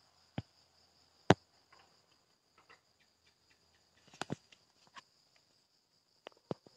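Scattered sharp knocks and clicks, the loudest about a second in and a quick cluster a little after four seconds, over a steady high chirring of crickets.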